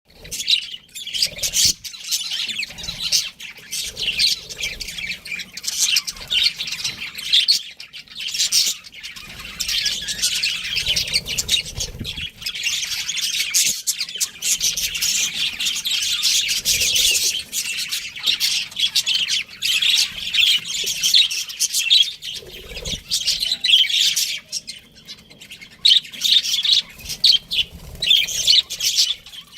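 A pair of budgerigars chirping and chattering continuously, with rapid twittering and occasional squawks.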